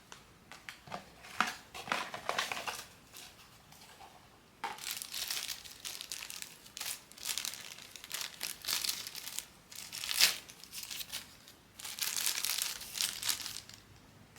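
Blind-box packaging crinkling and crumpling as it is handled and opened, in several bursts with short pauses between them, and one sharp click about ten seconds in.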